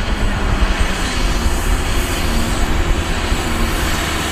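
Tipper semi-trailer dump truck's diesel engine running steadily with its bed raised while it unloads sand: a continuous heavy rumble with noise spread over it.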